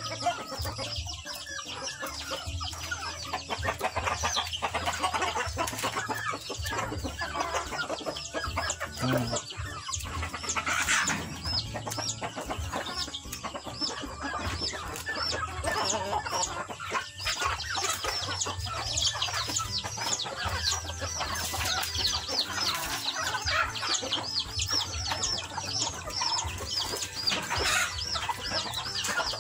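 A flock of free-range chickens, chicks among them, clucking and peeping continuously as they feed on corn, with many quick high chirps throughout.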